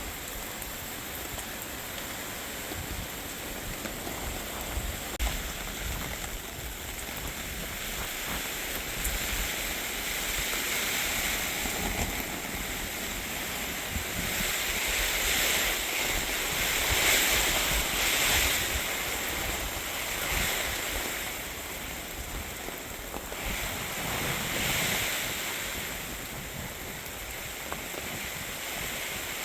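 Steady rain falling, with wind rising in gusts several times over a constant rushing background.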